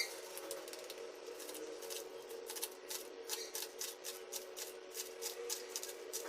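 Light, sharp taps repeating in an even rhythm of about three to four a second, less regular at first, over a steady low hum.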